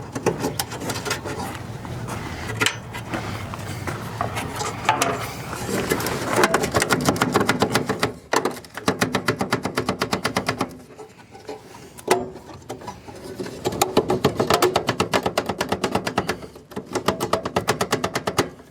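Rapid metallic clicking and rattling in two long runs, from removing the wing nut on an RV furnace's flue and working the flue loose.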